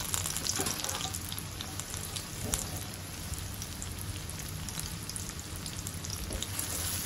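Sliced onion and chopped tomato frying in hot oil in a stainless steel wok: a steady sizzle with scattered small crackles.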